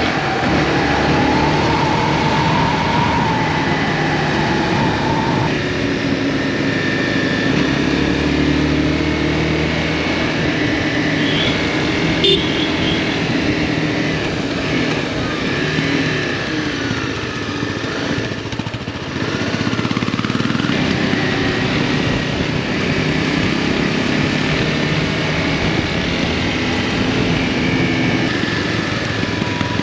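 Motorcycle engine running on the move, its pitch rising and falling with the throttle over a steady rush of noise.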